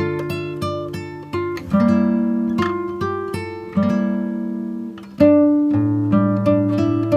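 Background music on acoustic guitar: plucked notes and chords that ring and fade, with a new phrase struck every second or two.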